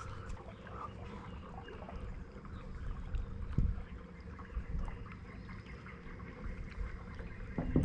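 Boat idling on the water: a steady low rumble with a faint constant hum. A single dull knock comes about three and a half seconds in.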